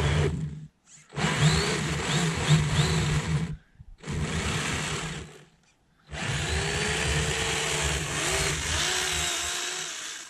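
RC snowmobile with a 1/8-scale brushless motor on a 3S LiPo driven in about four throttle bursts with short pauses between them. A whine rises and falls inside the noisy drive sound, and the last burst is the longest.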